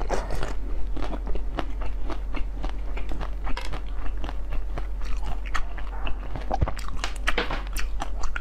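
Close-miked biting and chewing of frozen basil-seed ice: a dense, irregular run of sharp, crisp cracks and crunches as pieces snap off and are ground between the teeth.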